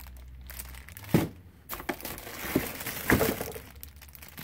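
Plastic packaging crinkling and rustling as wrapped winch parts are handled in a cardboard box. A few sharp clicks and knocks come through, the loudest about a second in and just after three seconds.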